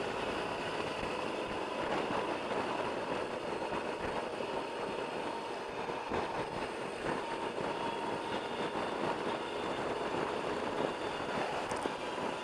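Steady wind rush and motorcycle running noise on the move, picked up by a camera mounted on the motorcycle.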